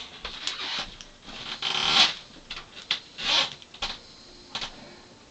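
Rubbing and scraping handling noise from hands working an Abus padlock and its picking tools, in several swells with scattered small clicks.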